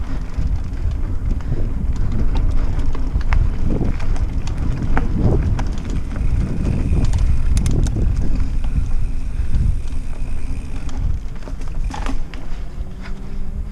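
Mountain bike riding a dirt singletrack: steady wind buffeting on the rider-mounted camera's microphone over the rumble of the tyres, with scattered clicks and rattles from the bike over bumps.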